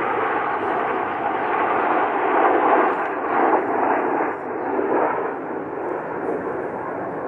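BAE Hawk T1 jets of the Red Arrows flying over in formation: a steady rushing jet-engine noise, loudest in the first half and easing off a little in the second.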